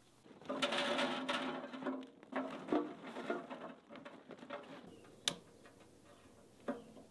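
Charcoal briquettes poured from a bag into an offset smoker's metal firebox, clattering onto the grate: a dense rush of clatter, then scattered clacks as they settle, with a sharp knock about five seconds in and another near the end.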